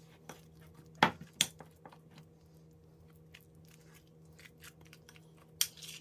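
A spoon working soft butter with herbs and seasoning in a bowl: squishing with many light clicks, two sharp knocks of the spoon against the bowl about a second in, and a short scrape near the end.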